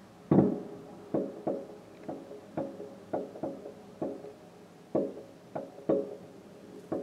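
Aerial fireworks shells bursting in quick, irregular succession: about a dozen muffled bangs, each with a short ringing tail. The first, just after the start, is the loudest.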